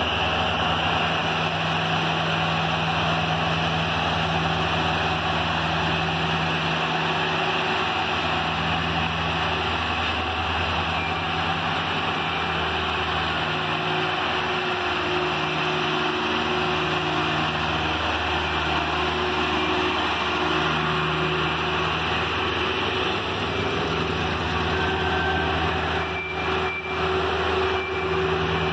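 Heavy road roller's diesel engine running steadily as the roller travels back and forth compacting freshly patched asphalt, its engine note dipping and picking up again now and then.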